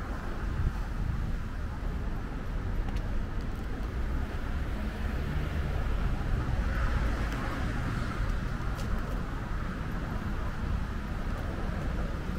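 Street ambience with steady traffic rumble, swelling a little around the middle as a vehicle passes.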